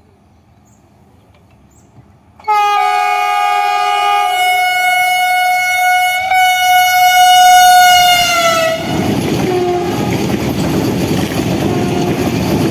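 Vande Bharat express train's horn sounding loudly for about six seconds as the train speeds by, its pitch dropping as it passes. Then the rush and rumble of the train running past on the rails.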